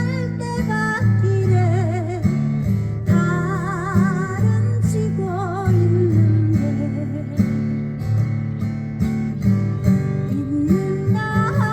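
Music: an instrumental passage with guitar, steady bass notes and a wavering lead melody, with no sung words.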